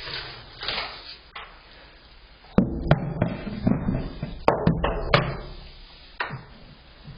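A handful of sharp knocks and clunks, bunched together from about two and a half to five seconds in, over a low rumble.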